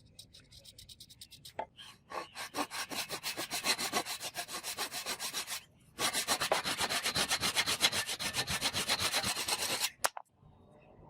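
Fast, even back-and-forth strokes of hand abrading on the workpiece, in two runs. The second run is louder and stops sharply near the end.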